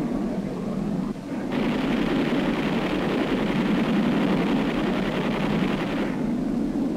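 Jet aircraft engine noise, a steady rushing rumble that suddenly grows fuller and brighter about one and a half seconds in and falls back about a second before the end.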